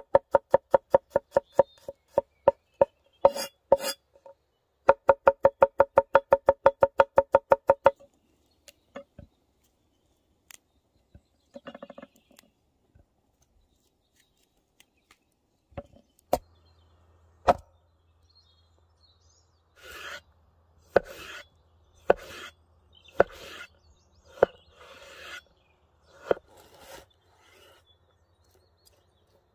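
Steel cleaver chopping garlic on a wooden cutting board: rapid, even knocks, about five to six a second, with the board ringing, stopping about eight seconds in. Later, slower strokes of the blade slicing through a tomato, each ending in a sharp knock on the board.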